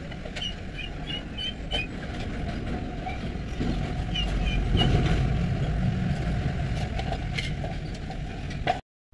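Steady low background rumble with a few short, high chirps in two small clusters; the sound cuts off abruptly near the end.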